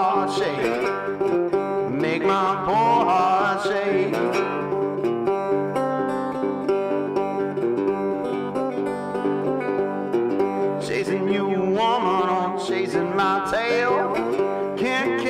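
Country-style background music with plucked strings playing throughout.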